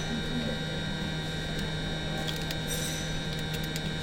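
Steady electrical hum, with a few faint clicks and crackles from the cracked phone screen glass as it is pried away from the frame.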